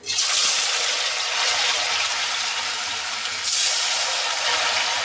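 Masala-coated potato strips dropped into hot cooking oil, setting off a loud, steady sizzle of deep-frying that starts at once and surges again about three and a half seconds in.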